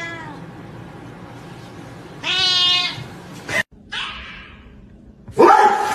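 Orange tabby cat meowing: a short call falling in pitch at the start, then a longer, louder meow about two seconds in. Near the end a loud burst of another sound begins.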